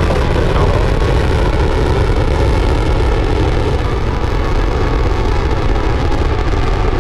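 SpaceX Falcon 9 rocket's nine Merlin first-stage engines during liftoff and ascent: a loud, steady, deep rumble.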